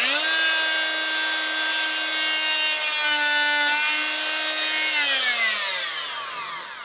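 Handheld oscillating multi-tool with a fine saw blade cutting away small bits of wood from a plank, running at a steady high pitch. The pitch dips briefly about three seconds in as the blade bites, and the tool winds down over the last two seconds.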